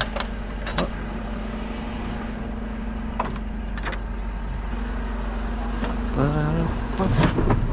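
Refuse lorry engine running steadily at idle, with a few sharp knocks from plastic wheelie bins being grabbed and pulled out. A brief voice comes near the end.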